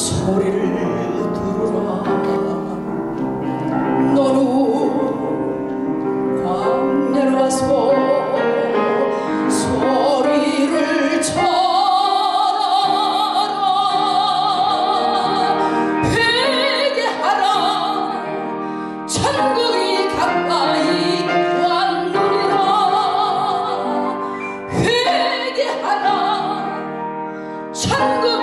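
A woman singing a Korean Christian song in a full, operatic voice with vibrato into a microphone, accompanied by grand piano. About a third of the way in she climbs to a long held high note.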